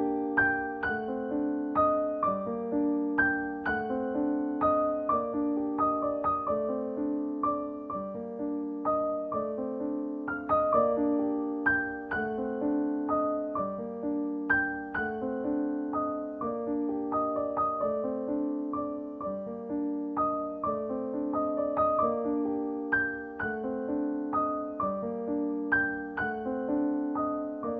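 Background music: a gentle piano tune with repeating struck notes over a low repeating figure.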